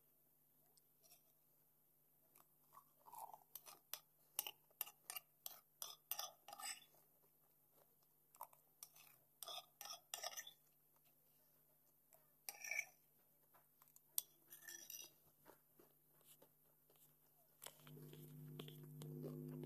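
Faint, irregular crunchy chewing close to the microphone, coming in clusters of quick clicks, over a low steady hum. Near the end, music with steady held tones comes in.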